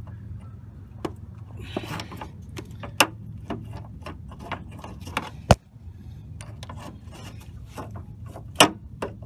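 Pliers working a small rubber hose off its fitting under the hood: scattered metallic clicks and rubbing of the jaws, with sharp snaps about three and five and a half seconds in and another near the end.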